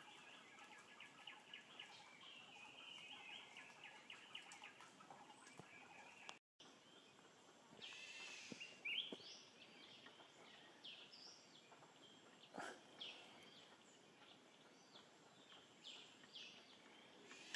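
Faint wild bird calls. At first a steady, repeated high chirping, then after a cut a series of separate sharp calls that slide in pitch, the loudest about nine seconds in.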